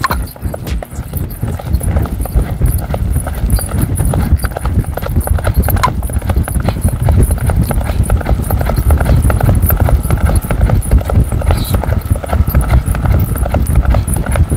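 Horse galloping, its hooves striking the ground in a quick, steady rhythm.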